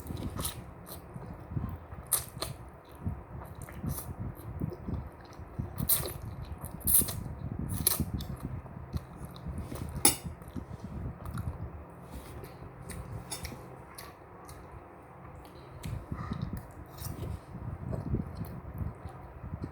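Close-up eating sounds of spicy instant noodles being chewed and eaten, with many short, sharp clicks and taps scattered irregularly through it.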